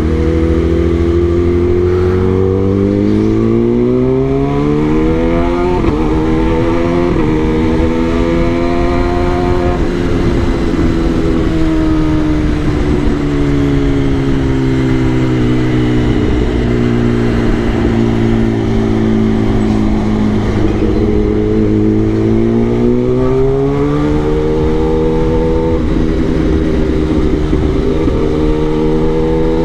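Kawasaki ZX-10R's inline-four engine under way: the revs climb with two quick upshifts a few seconds in, ease off slowly for a long stretch, then climb again with another shift near the end.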